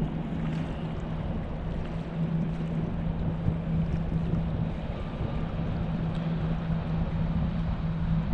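A party fishing boat's engine running as the boat heads out through the inlet: a low, steady drone over a faint background rush.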